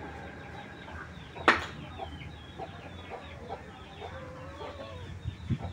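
Chickens clucking, with many short high chirps and calls, and one sharp knock about a second and a half in.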